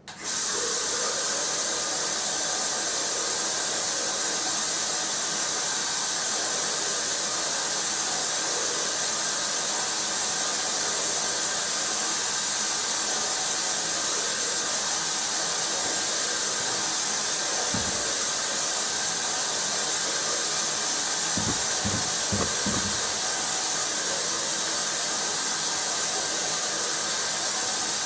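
Steady loud hiss that starts and stops abruptly, with one dull low thump past the middle and a short cluster of low thumps a few seconds later.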